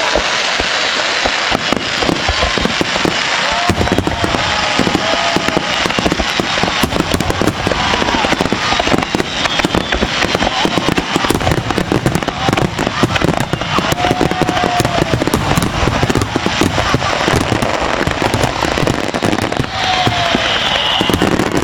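Fireworks in a rapid barrage: a dense, unbroken stream of crackling and popping reports with heavier bangs among them.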